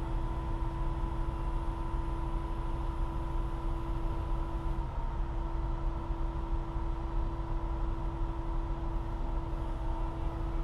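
An engine or motor running steadily at constant speed: a low rumble with a steady hum over it.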